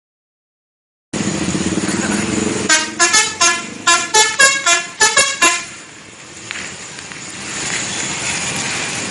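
Indonesian bus's 'telolet' musical horn playing a quick run of about a dozen short notes at changing pitches, starting a couple of seconds in over the bus's engine and road noise. Steady traffic noise follows.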